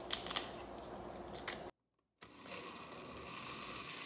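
Kitchen scissors snipping kale leaves, a few quick cuts in the first second and a half. After a brief dead gap, a steady faint noise.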